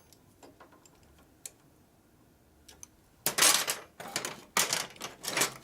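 Hand tools working on the motorcycle: a few faint separate clicks, then about a second in from the middle, four short bursts of rapid metallic clicking.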